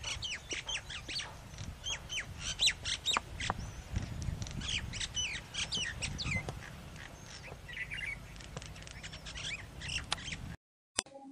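Birds chirping and calling, a rapid stream of short, high chirps and quick sweeps over a low background noise, cutting off suddenly near the end.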